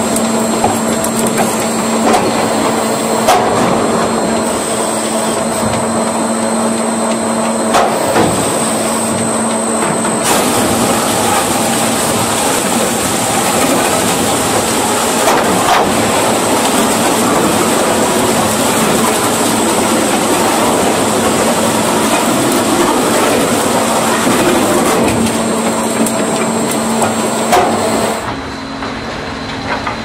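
Wood-processing machinery running steadily: a loud mechanical clatter and rumble with a steady hum and scattered knocks of timber. The sound changes abruptly near the end.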